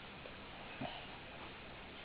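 Quiet pause between an English bulldog's snores: a faint, even breathing hiss, with one brief soft sound just under a second in.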